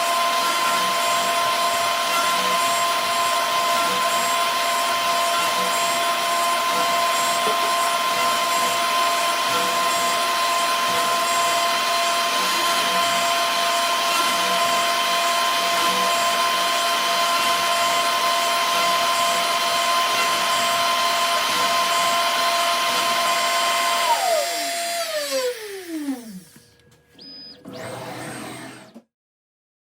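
High-speed electric workshop motor running steadily with a whine, then switched off about 24 seconds in and spinning down, its pitch falling away to nothing.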